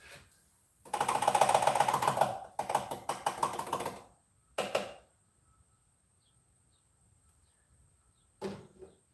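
Rapid metallic clicking and rattling from hand work in an engine bay: a long run of about a second and a half, a second shorter run, then a brief burst in the middle and another near the end.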